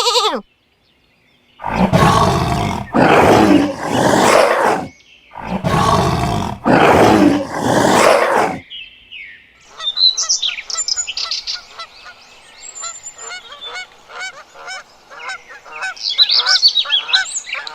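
Two sets of animal roars, three roars in each, then from about ten seconds in a flock of geese honking in many short, overlapping calls.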